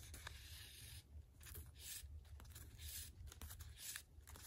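Faint hiss of bookbinding thread being drawn through the sewing holes of paper pages, in several short pulls, with small ticks of paper being handled.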